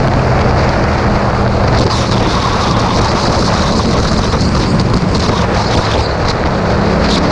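Motorcycle riding at road speed: steady wind rush over the camera microphone with the engine's even hum underneath, the engine note fading a little mid-way and coming back near the end.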